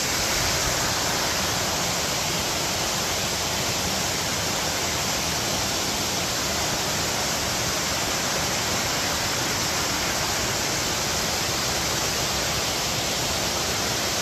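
Waterfall rushing: a steady, even noise of falling water that holds unchanged throughout.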